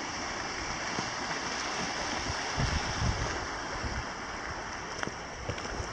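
Steady rushing of wind and small waves lapping on a shoreline, with a few low gusts of wind buffeting the microphone about halfway through.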